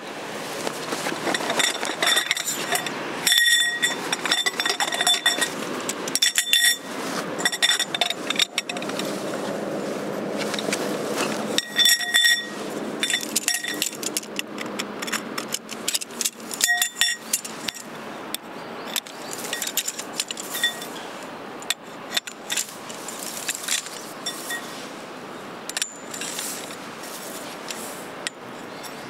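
Metal objects clinking and knocking together with a bright ringing, in irregular clusters of strikes, amid rustling handling noise.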